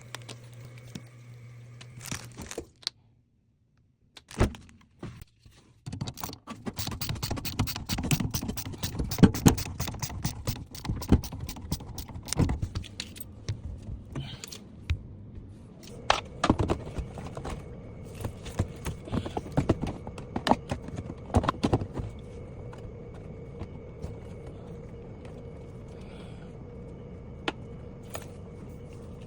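Rapid metallic clinks, clanks and knocks of tools and metal fittings being handled while installing a dishwasher, thick from about six seconds in to about twenty-two seconds, then giving way to a steady faint hum.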